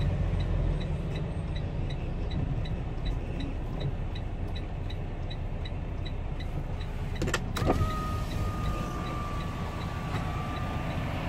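Semi truck's diesel engine running, a steady low rumble heard from inside the cab, with a light ticking about three times a second. About seven seconds in come a couple of sharp clicks, then a thin steady tone for about three seconds.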